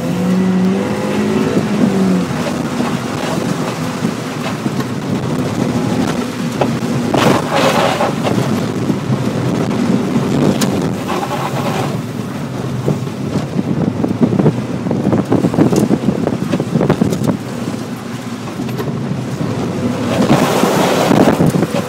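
Mazda Miata's four-cylinder engine running under load during a wet autocross run, heard from inside the car, mixed with the loud rushing of water spray off the flooded pavement. The rushing swells twice, about seven seconds in and near the end.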